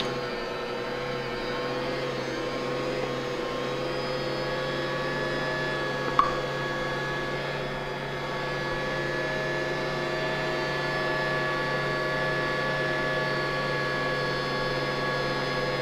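Bosch kitchen mixer's motor running steadily as it kneads bread dough, a steady whine with a single short knock about six seconds in.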